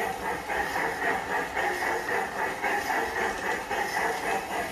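PIKO G-scale model steam locomotive running around a track loop, with a steady rhythmic pulse about three times a second and a light hiss.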